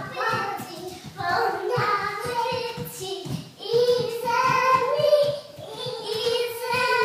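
Young child singing a sung melody, with several long held notes in the second half.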